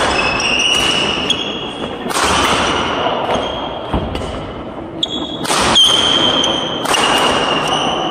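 Badminton rally: rackets striking a shuttlecock several times at irregular intervals, mixed with sneakers squeaking on the sports-hall floor as players shift their feet.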